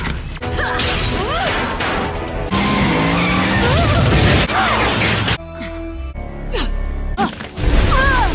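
A rapid series of short clips from an animated action series: a woman's brief grunts and cries of effort over a dramatic music score and fight sound effects such as impacts and crashes. The music and effects change abruptly with each cut, about every one to two seconds.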